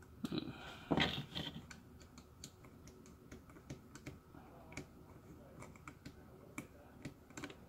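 Small, scattered clicks and taps from handling a car heater control circuit board and a metal pick on a bench mat, with a louder brief scuffing sound about a second in.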